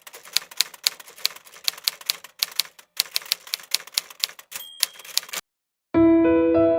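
Hammond 1 Remodel typewriter being typed on: a quick run of sharp mechanical keystroke clacks, about three to four a second, with a short ringing tone about four and a half seconds in. The typing stops, and after a brief silence gentle piano music begins near the end.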